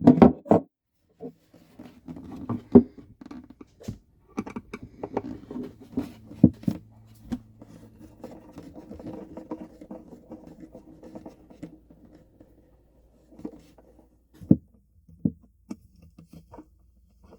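Scattered clicks, taps and light scraping of hand tools working on an acoustic guitar, with a faint steady hum underneath.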